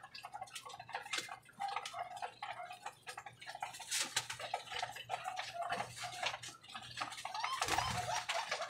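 Domestic pigeons feeding in a wire loft: quick pecking clicks on the feeder and wire floor, with cooing on and off. There is a burst of wing-flapping about four seconds in and another near the end.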